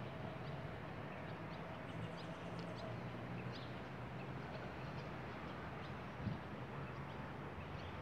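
Short, high bird chirps scattered over a steady low background hum, with one brief thump about six seconds in.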